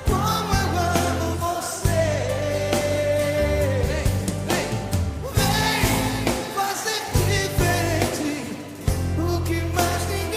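Background music: a song with a voice singing long, wavering held notes over a bass line and a steady beat.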